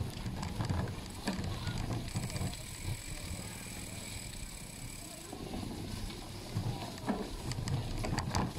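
Bicycles riding over a rough, muddy dirt path: an uneven low rumble from the tyres and frame, with scattered small rattles and clicks over the bumps.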